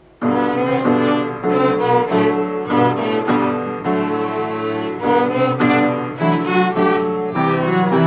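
Student chamber ensemble of violins, cello and grand piano playing a piece together, coming in together at the very start and carrying on at a steady, even pace.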